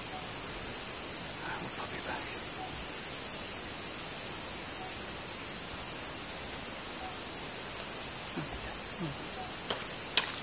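A chorus of night-calling rainforest insects: a steady, high chirring in even pulses at two pitches that alternate with each other. A faint click sounds near the end.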